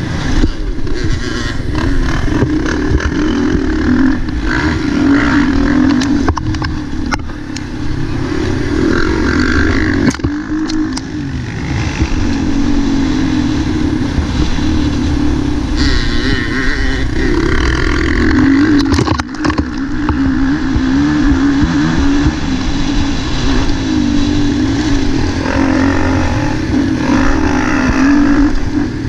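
Motocross bike engine heard from the rider's onboard camera during a race, revving up and down as the throttle opens and closes, with wind noise and a few sharp knocks.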